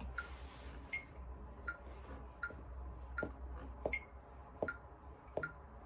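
Metronome clicking steadily at about 80 beats a minute, a higher click marking every fourth beat, faint over a low hum: the count-in before a guitar strumming exercise.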